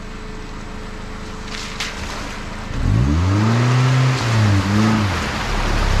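Compact SUV driving through a shallow flooded dirt road, tyres splashing through the water. About three seconds in the engine gets loud, its note rising and falling twice as it passes.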